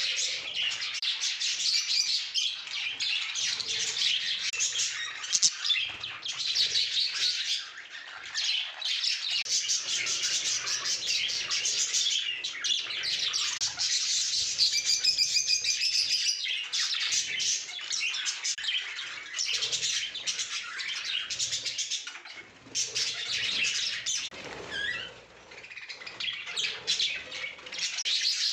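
A colony of budgerigars chattering and chirping, many birds at once in a dense, continuous warble, with a few brief lulls.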